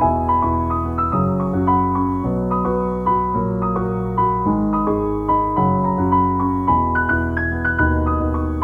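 Background music: a light, bouncy piano tune over a steady bass line, with notes changing in a regular rhythm.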